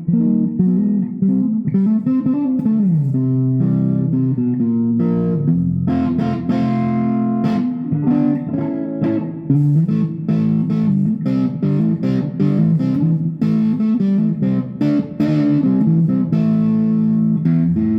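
Electric guitar (Stratocaster single coils, middle and neck pickups wired in series) played through distortion: a continuous run of picked notes and chords, with a note sliding up and back down about two seconds in.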